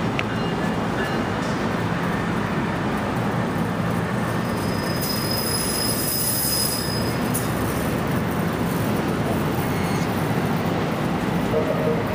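A passenger train running past with a steady rumble, and a high-pitched wheel squeal for about three seconds near the middle.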